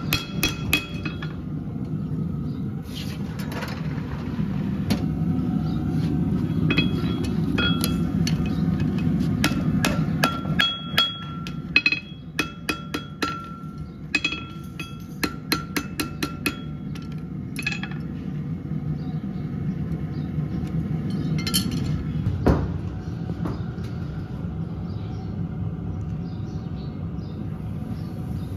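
Farrier's hammer tapping on the nails of a nailed-on horseshoe: quick, ringing metal-on-metal taps, a few a second, in runs through the middle, with one heavier knock near the end.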